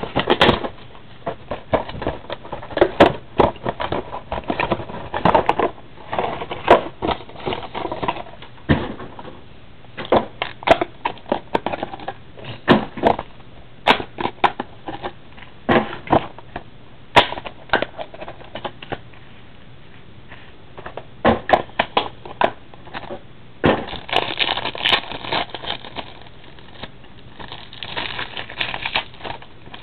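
Crinkling and crackling of card-pack packaging and shuffling trading cards as a pack is opened and gone through, in irregular bursts of clicks and rustles.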